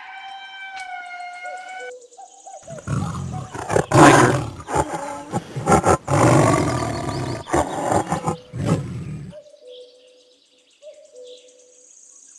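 Tiger roaring and growling in a run of loud, rough calls lasting about six seconds, then cutting off. At the very start, a lemur's rising calls trail off.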